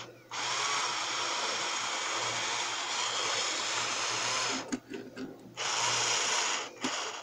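Small electric motor and gear train of a Piko BR 80 HO-scale model steam locomotive, running with the wheels turning on a test track. It runs steadily for about four seconds, cuts out, then runs again briefly.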